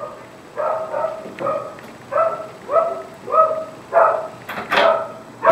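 A dog barking excitedly behind a closed front door, a rapid string of short barks at about two a second.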